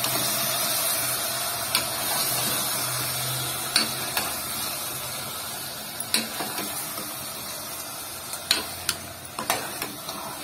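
Steel ladle scraping and knocking against the side of an aluminium pressure cooker as chicken pieces and ground masala are stirred and sautéed, with a steady hiss underneath. The knocks come every second or two, closer together near the end.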